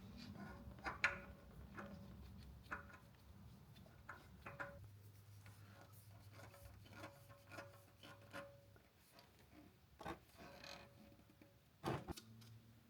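Quiet room with a low hum and faint, scattered clicks and light taps, with a couple of louder knocks near the end.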